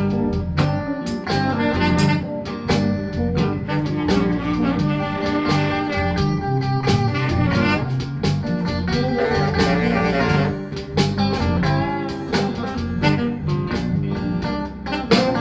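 Electric blues band playing an instrumental passage: guitar over bass and drums, with a steady beat.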